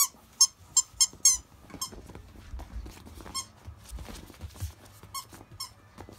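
Akita puppies squeaking and yipping in short high-pitched cries while they play-fight: a quick run of about five in the first second and a half, then fainter, scattered ones.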